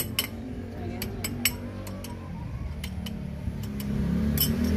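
Irregular sharp metallic clicks and clinks from a ratchet wrench working the brake caliper bolts on a Ford EcoSport's front brake. A low rumble runs beneath and grows louder near the end.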